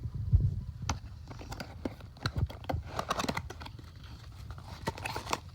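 Cardboard box being opened and its packaging handled: scattered clicks and taps, with bursts of crackly rustling about three seconds in and again near the end.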